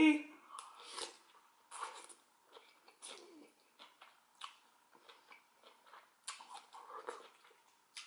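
Close-miked eating sounds: a forkful of cheesy instant ramen noodles slurped in and chewed, with many short, irregular wet smacks and mouth clicks.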